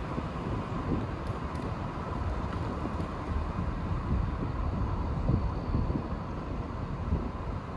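Wind buffeting the microphone: a gusty, rumbling noise that rises and falls in uneven surges.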